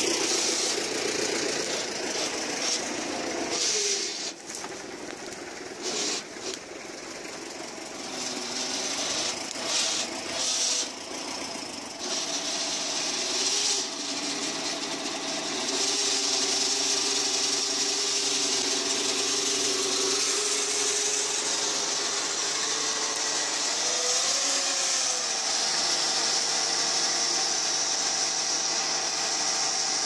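Farm tractor's diesel engine running while it works a hydraulic log-loading crane and grapple, its engine speed rising and falling a few times as the hydraulics take load. A high hiss rides above it and grows louder about halfway through.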